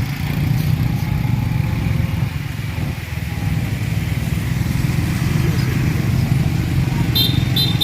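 Vehicle engine running steadily on the move, a continuous low rumble, with a few short high tones near the end.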